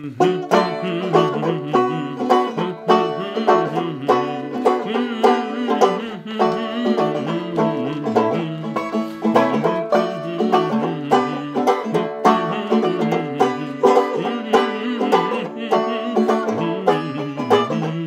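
Banjo playing an instrumental passage: quick plucked notes in a steady, even rhythm.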